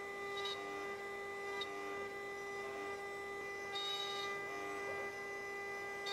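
Shapeoko 5 CNC router's 80 mm VFD spindle running at 24,000 rpm while a 60-degree V-bit carves bamboo plywood: a steady high hum with a string of overtones. Short higher chirps come and go as the machine moves along the toolpath.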